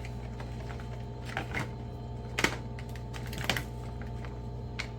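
Small plastic packaging being handled and opened by hand: a few scattered clicks and taps at irregular moments, over a steady low hum.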